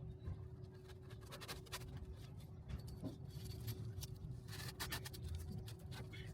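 Irregular rustling and scraping clicks of hand work on a charpai, rope or cord being drawn and worked through the woven frame, with a faint steady hum underneath.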